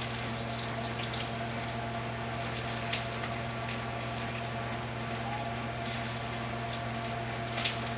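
Water steaming and bubbling in a makeshift sausage cooker: a steady hiss over a constant low hum, with a few light clicks.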